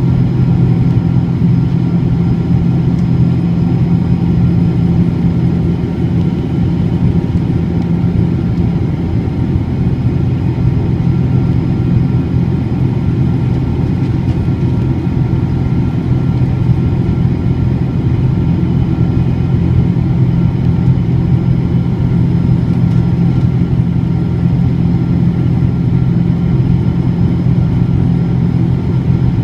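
A Boeing 777-200's twin jet engines running at steady power: a loud, even low rumble with a steady low hum, neither rising nor falling.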